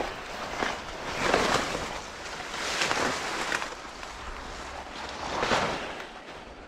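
Leaves and stems of tall weeds brushing and rustling against the camera and clothing while pushing through dense undergrowth, in three swells of rustling.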